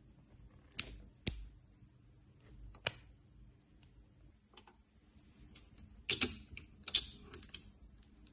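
Scattered sharp clicks and small metal taps from a wristwatch's case and bracelet being handled, with a few clustered together near the end.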